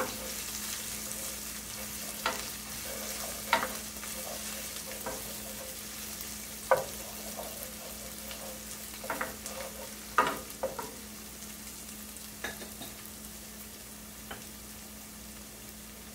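Ginger-garlic paste, cumin seeds and dry red chilies sizzling in hot oil in a frying pan, the sizzle slowly fading. A wooden spatula scrapes and knocks against the pan every second or two as the mixture is stirred.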